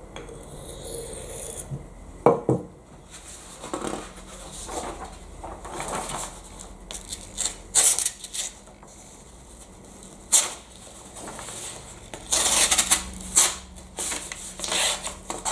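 Steel knife blade knocking and scraping against an abrasive block, with short metallic clinks, to blunt its edge. Then comes paper rustling and crumpling as the dull blade is pushed through a sheet, with several loud rustles near the end.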